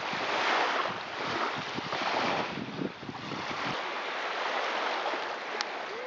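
Small waves of a calm sea lapping and washing onto a sandy shore, swelling twice in the first few seconds, with wind rumbling on the microphone. The low wind rumble drops away about two-thirds of the way through, leaving the hiss of the surf.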